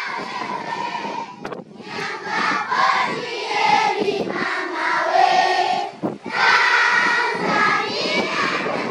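A large crowd of schoolchildren singing together in unison, with a brief break between phrases about six seconds in.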